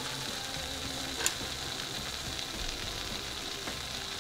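Quiet background music over a steady hiss, with one sharp click about a second in.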